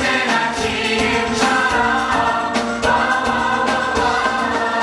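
A stage-musical cast singing an upbeat number in chorus, many voices together over a live band with drums.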